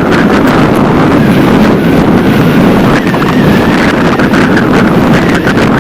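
Wind rushing over the microphone of a camera on a fast-moving bicycle, a loud steady rush with scattered small clicks.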